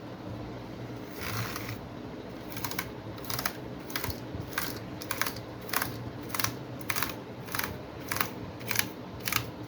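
Toothbrush scrubbing the bare deck of a mechanical keyboard, its keycaps removed: a brief scratchy swipe, then a regular run of short brushing strokes, about one and a half a second.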